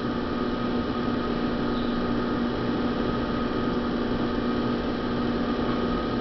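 Electric potter's wheel running at a reduced speed, a steady motor hum with a constant low tone under the wet clay being opened.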